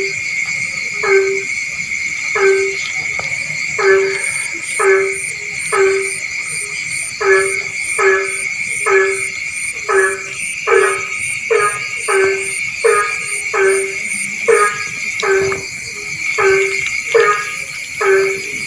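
Frog calling in a rice field: short, pitched, nasal calls repeated over and over, slower at first, then about two a second, over a steady high-pitched chorus.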